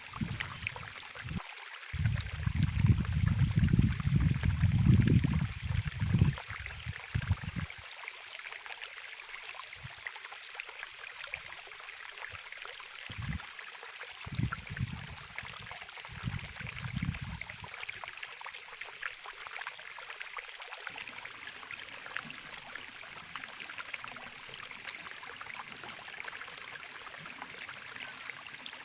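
Steady rush of running water, like a stream. Low rumbles come and go over it, loudest a couple of seconds in and again around the middle.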